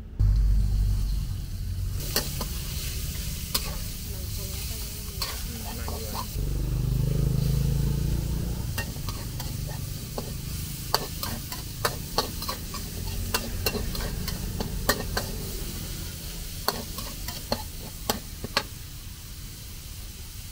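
Food sizzling in a wok as it is stir-fried, with a metal spatula scraping and clinking against the wok in many sharp, irregular strikes. A low rumble swells for a couple of seconds about six seconds in.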